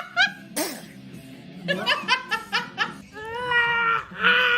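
Laughter in quick, high-pitched bursts, a short breathy burst of noise about half a second in, then two long, high-pitched squeals in the last second and a half.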